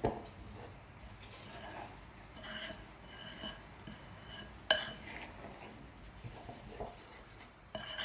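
Metal spoon stirring and scraping a thick, powdery bicarb soda and citric acid mixture around a bowl, with one sharp clink of the spoon against the bowl a little past halfway.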